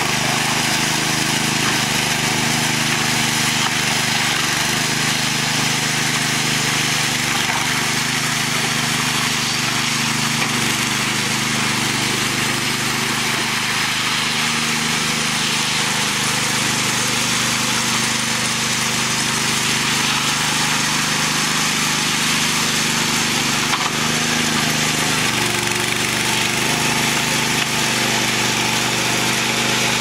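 Small petrol engine of a walk-behind concrete power trowel running steadily while its rotating blades smooth fresh concrete. The engine note shifts slightly about 25 seconds in.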